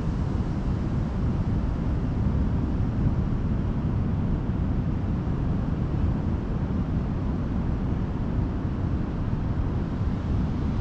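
Wind buffeting the microphone in a steady low rumble, mixed with ocean surf.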